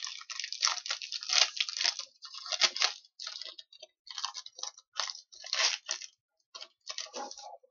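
Hockey trading cards and their packaging being handled: irregular bursts of rustling and crinkling with short pauses between them.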